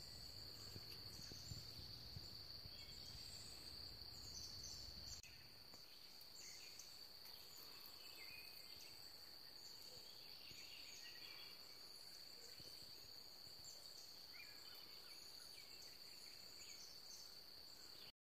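Faint meadow ambience: a steady high insect drone with scattered faint chirps over it. A low rumble underneath stops about five seconds in.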